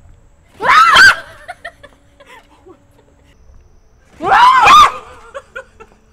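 A young woman shrieking twice, short high screams about three seconds apart, scared by a bug, with bits of laughter in between.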